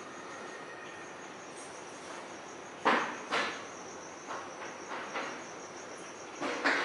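Steady, evenly pulsed high chirping like crickets, with a run of sharp knocks or taps starting about three seconds in: two loud ones close together, a few softer ones, then two more near the end.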